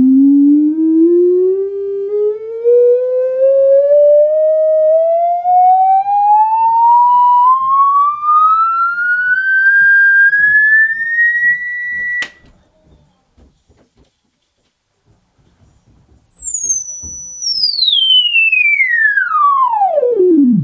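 The two speakers of a Silverface Fender Twin amplifier play a sine sweep from a signal generator. A pure tone rises steadily in pitch for about twelve seconds, then there is a click, and a second tone falls from very high down to low. The speakers reproduce it cleanly, with no buzz of voice-coil rub.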